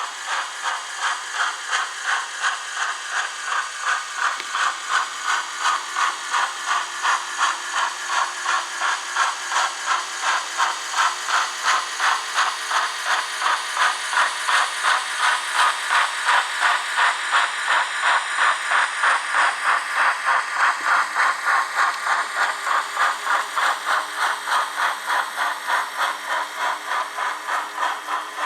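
Model Ixion J class steam locomotive running on DCC sound: synthesised steam exhaust chuffs from its onboard speaker in a steady beat of about two a second, with hiss and rattle from the model's drive mechanism mixed in.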